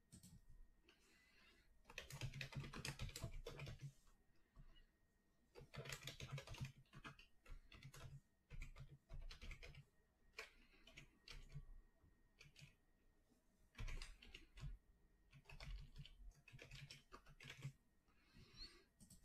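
Faint typing on a computer keyboard: several short runs of quick keystrokes, separated by pauses.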